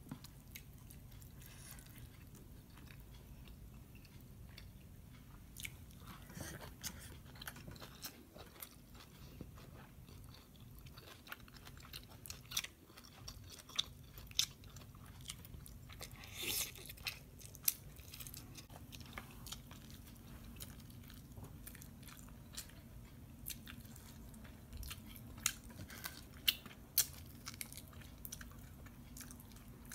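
Close-miked chewing and biting of barbecue pork ribs, with irregular sharp mouth clicks throughout.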